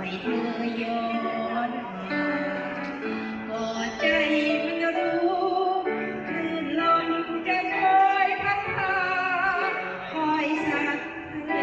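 Music: a melody line with a wavering pitch over accompaniment, part of a Thai song played without words being picked out here.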